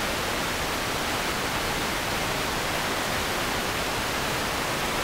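Steady, even static hiss across all pitches, loud and unchanging: a glitch in the old videotape recording that replaces the rink sound.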